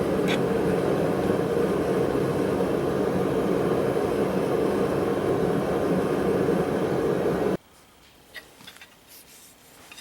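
A blacksmith's forge running with a steady roar that cuts off suddenly about three-quarters of the way through. After it come a few light metallic clicks and ticks.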